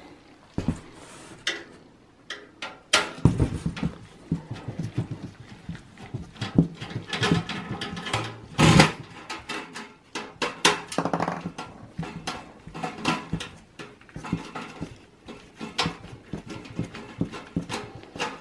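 Screwdriver and gloved hands working on a sheet-metal computer chassis while the two screws holding the internal speaker are undone: irregular clicks, scrapes and knocks, with louder knocks about three seconds in and again about nine seconds in.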